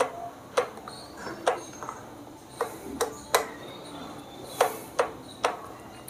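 Thermostat knob of a Glen HA 7020 fan heater being turned by hand, giving about nine sharp plastic clicks at uneven intervals.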